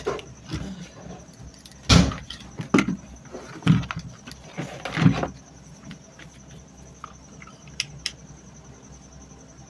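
Handling noise from working on a stand fan's motor and wiring: a series of knocks and rattles over the first five seconds, the loudest about two seconds in and again near five seconds, then a couple of faint ticks.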